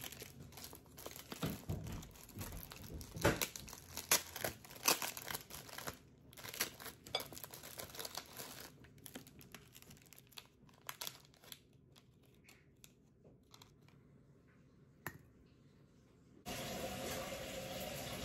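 Crinkling and tearing of a wrapper being opened from a flowering tea ball, a run of short rustles and clicks that thins out after about nine seconds. About sixteen seconds in, water starts pouring steadily from a kettle into a glass teapot.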